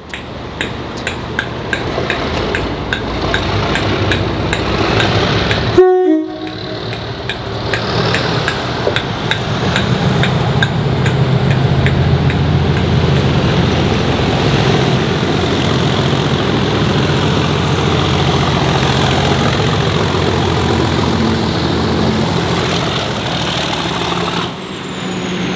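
Railway train at a station: fast, even ticking for the first few seconds, then a brief loud warning blast about six seconds in that cuts off suddenly. After it comes a steady rumble and hiss that builds and holds for most of the rest.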